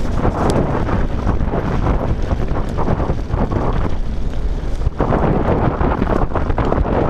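Wind buffeting the microphone of a camera on a mountain bike descending at speed, over the rumble of its tyres on loose gravel and stones, with many small clicks and rattles from the bike.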